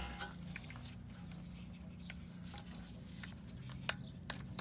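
Faint scattered clicks and handling noises of a hand tool on spark plugs being fitted, with one sharper click near the end, over a faint low hum.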